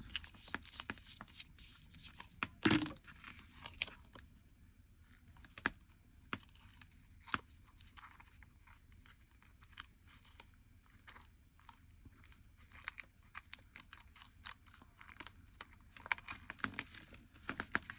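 Faint rustling and crinkling of origami paper being handled and fitted with a paper string, with scattered small clicks and taps, the sharpest about three seconds in.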